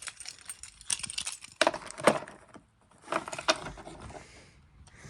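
Handling noises: a string of sharp clicks and knocks over a crinkly rustle, broken by a brief quiet gap about two and a half seconds in.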